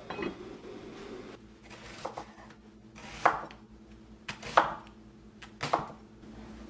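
A lid set onto an enamelled cast-iron pot with a short clunk, then a santoku knife slicing through an onion and striking a wooden cutting board, about four strokes a little over a second apart.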